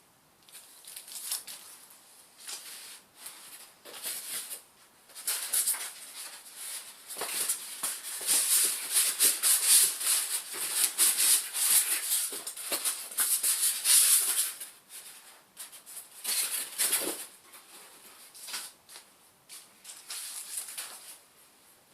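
Packaging being handled: irregular rustling and crinkling, busiest and loudest in the middle and tailing off toward the end.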